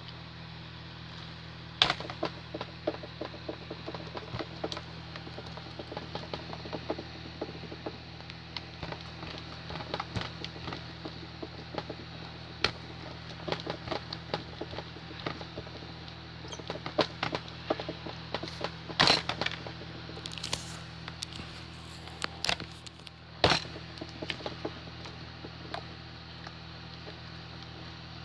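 Homemade slime being squeezed and kneaded by hand, giving a run of irregular small clicks and pops, with a few louder pops about two seconds in and again past the middle.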